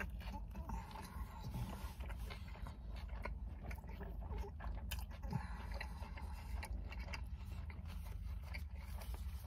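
A person chewing a mouthful of grilled chicken wrap with the mouth closed, making many small soft clicks, over a steady low hum.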